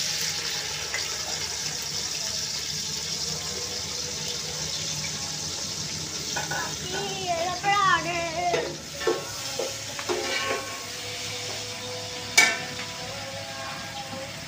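Sliced onions sizzling as they hit hot oil in an aluminium pot, a steady frying hiss that starts at once and slowly eases off. A sharp knock comes about twelve seconds in.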